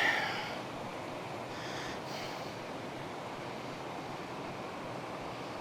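Steady rushing of a fast stream tumbling over small waterfalls, an even wash of water noise.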